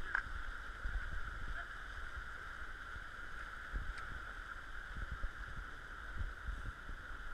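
Steady rushing of a shallow river over stones, with wind buffeting the microphone in low gusts and a couple of sharp clicks, one near the start and one about four seconds in.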